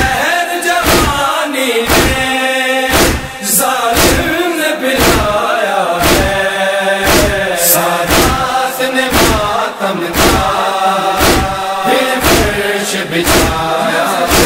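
A group of voices chanting an Urdu nauha, a Shia lament, in unison. It is kept in time by steady matam chest-beating at about one and a half beats a second.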